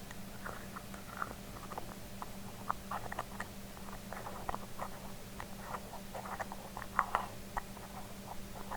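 Metal and glass lids being handled: irregular small taps, clicks and scratches, with a louder pair of taps about seven seconds in. A steady low hum runs underneath.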